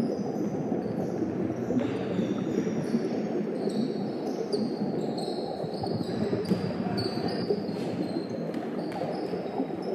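Basketballs bouncing on a hardwood gym floor, with repeated sharp thuds, and sneakers squeaking in short high chirps over a steady echoing hall din.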